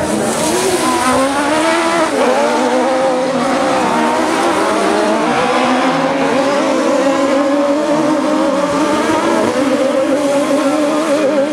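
Several Buggy1600 autocross buggies racing together at high revs, their overlapping engine notes rising and dropping in pitch as they accelerate and lift.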